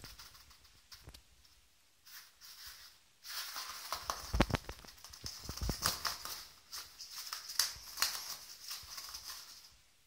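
Toilet paper being pulled and crumpled by hand: a crackly paper rustle that starts about three seconds in and stops just before the end, with a few sharp crinkles and dull handling thumps.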